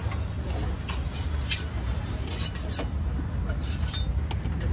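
Steady low rumble of street traffic, with scattered light clicks and clinks.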